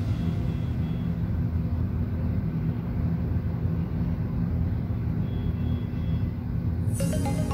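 A low, steady rumbling drone with a few faint held tones. Music with higher notes comes in sharply near the end.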